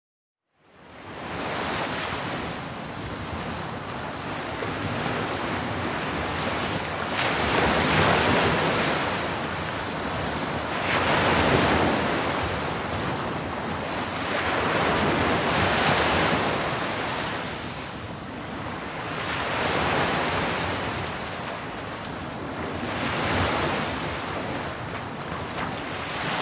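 Waves washing in with wind, a steady rush that swells and eases about every four seconds.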